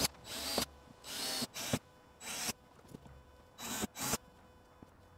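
DeWalt 18V XR cordless drill boring screw holes through the flange of a clear polycarbonate NACA duct into a polycarbonate window panel. It comes in about six short bursts, each well under a second, as each hole is drilled.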